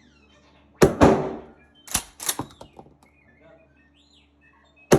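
Shotgun shots: two loud reports a quarter-second apart about a second in, each ringing out, then two shorter, sharper cracks about a second later, and another loud shot right at the end. A faint bird chirp comes in between.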